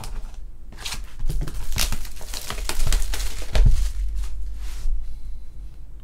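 Plastic shrink-wrap being torn off a sealed trading-card box and crumpled: a run of crackling, rustling tears lasting a few seconds, with a low steady hum underneath.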